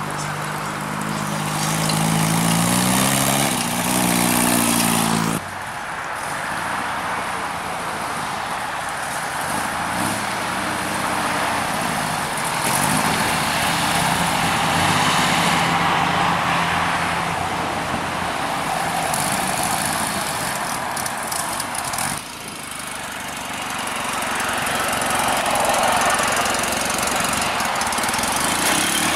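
Vintage cars driving slowly past one after another, among them VW-based dune buggies with air-cooled flat-four engines. The engines run and rev as they pull away, the note rising early in the clip and again at the end.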